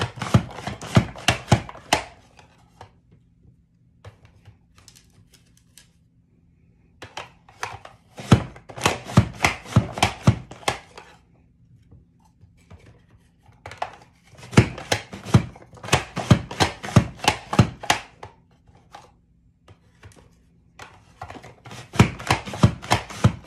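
An apple is pushed again and again through the large julienne (French fry) blade of a Pampered Chef Rapid-Prep Mandoline, making quick slicing strokes about four a second. The strokes come in four runs of a few seconds each, with short pauses between.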